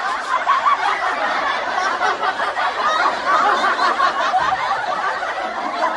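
Several people laughing together, many voices overlapping in a dense, steady wash of laughter.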